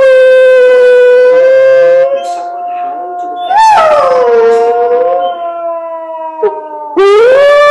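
Hound dog howling along with wolves howling on a television wildlife programme: long drawn-out howls, several voices overlapping. The howling eases about two seconds in, a shorter howl rises and falls in the middle, and a new loud howl sweeps up near the end.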